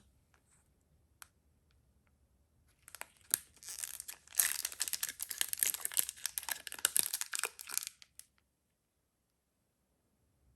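Foil wrapper of a Magic: The Gathering booster pack crinkling and tearing as it is opened, a dense run of crackles starting about three seconds in and stopping about eight seconds in.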